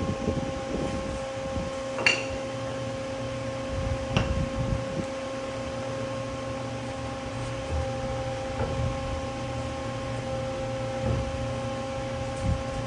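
Hydraulic unit of a Hyd-Mech V-18 vertical band saw humming steadily with the blade stopped, with two sharp knocks about two and four seconds in as a piece of stock is handled at the machine.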